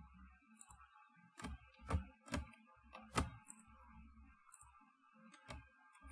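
Scattered sharp clicks of a computer mouse and keyboard, about six spread over several seconds with the loudest near the middle, over a faint steady hum. The clicks come as code is selected, copied and pasted into another editor pane.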